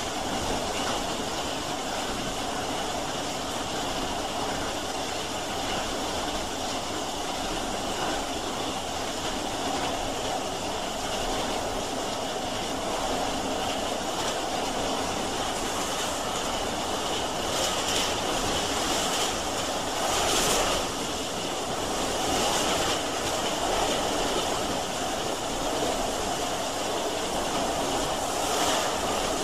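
Steam train running, a steady noisy sound of the moving train that swells briefly several times in the second half.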